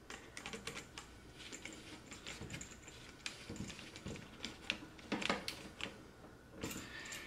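Screwdriver tightening a brass terminal screw on an electrical outlet to clamp the wire: a faint, irregular run of small clicks and scrapes, with a few louder knocks past the middle.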